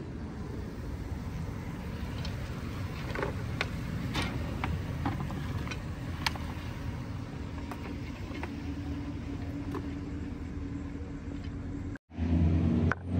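A steady low outdoor rumble, with scattered light clicks and knocks for several seconds.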